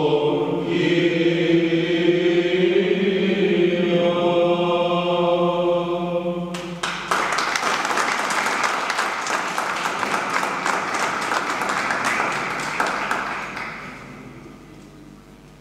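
Men's choir singing a Byzantine chant hymn over a low held drone note, ending on a long held chord about six and a half seconds in. Audience applause follows for about seven seconds, then dies away.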